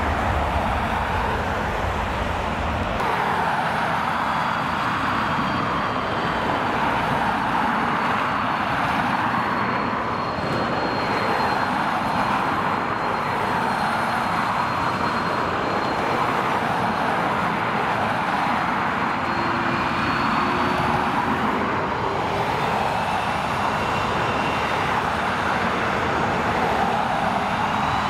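Airbus A330 jet engine noise, a steady rush with faint high whining tones above it; near the end a whine begins to rise in pitch.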